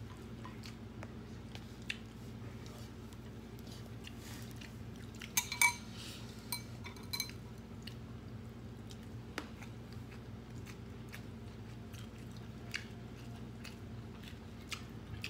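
Eating sounds: chewing, with light clinks of a spoon against bowls and a glass jar, and a few louder ringing clinks about five and a half to seven seconds in. A steady low hum runs underneath.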